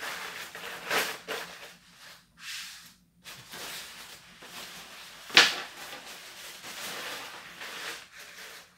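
Nylon raincoats rustling and crinkling as they are handled, shaken out and laid flat, with one sharp, louder noise about five and a half seconds in.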